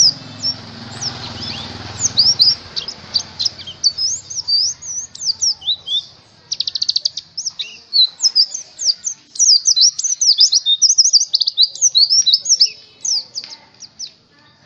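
Pleci (white-eye) songbird singing a fast, continuous run of high chirping notes, with a quick rattling trill about six and a half seconds in.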